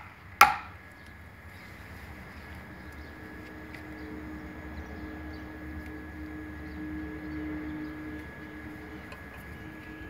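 A hand slaps a carved marble tile once, about half a second in, giving a sharp knock as it presses the tile into place on the wall. After it comes a steady low hum of background noise.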